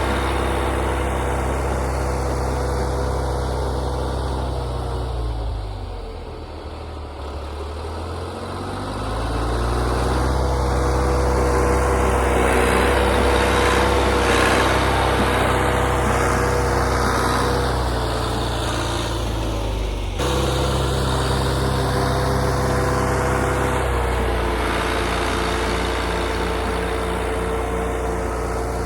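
Old John Deere backhoe's engine running as it pushes snow. The engine slows and quietens about five seconds in, picks back up around nine seconds, and shifts down again briefly near twenty seconds and twenty-four seconds.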